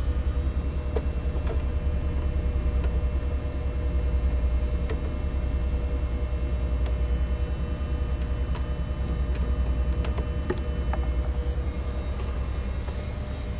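Steady low rumble of a ship's machinery with a constant hum, heard inside the vessel. A few light clicks come on top from handling a USB flash drive at a computer tower.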